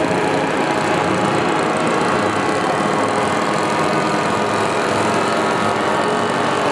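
Several radio-controlled scale WWI model airplanes flying at once, their small piston engines droning together as many overlapping tones, some drifting slowly up and down in pitch as the planes pass.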